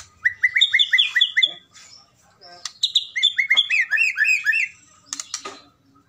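Caged white-rumped shama (murai batu medan) giving its keretekan challenge call to rivals: two quick runs of short, repeated slurred notes, about eight to ten notes each. A few sharp clicks come just before the second run ends and about five seconds in.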